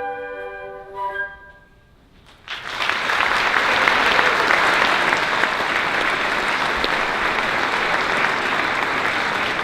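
A musical piece with a flute or woodwind melody holds its last notes and ends, then after a short pause a large audience breaks into steady applause that runs on.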